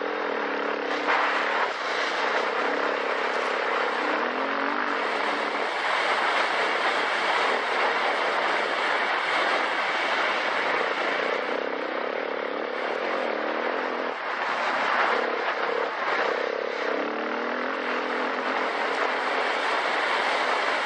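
Dual-sport dirt bike engine running under way, its note wavering up and down with the throttle, beneath a steady rushing noise.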